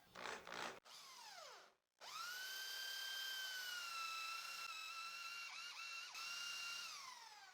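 Electric drill spinning a 35 mm Forstner bit into wood: a short wind-down about a second in, then a steady high motor whine for about five seconds that dips in pitch twice as the bit bites, before winding down near the end.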